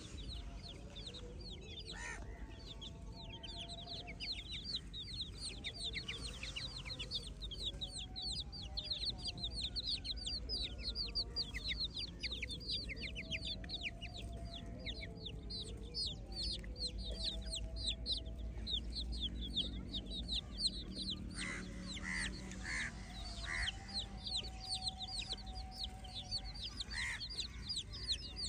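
A group of domestic chicks peeping continuously as they forage: a dense stream of short, high chirps that fall in pitch, several a second.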